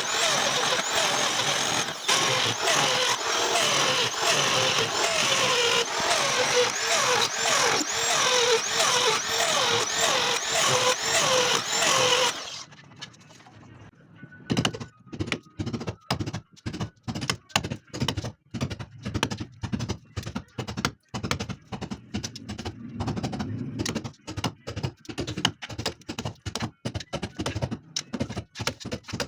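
Electric drill grinding into a masonry wall to cut a channel for electrical wiring. It runs loud, its whine wavering up and down over and over, then stops abruptly about twelve seconds in. After a short pause comes a quieter run of sharp knocks, several a second.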